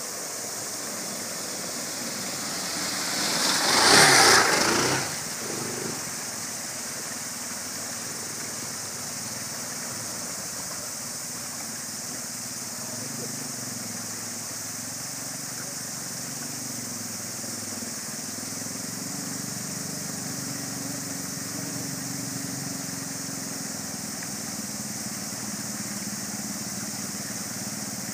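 Motorcycle engines running in a stream over the steady rush of flowing water, with a loud surge about four seconds in. From about twelve seconds in, a motorcycle engine runs at low revs, its pitch rising and falling a little as the bike is worked through the water.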